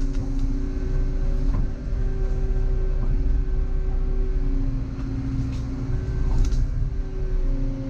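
Volvo EC140EL excavator running under working load, its diesel engine hum and hydraulic whine shifting pitch as the arm moves, with a few sharp knocks or cracks from timber being handled.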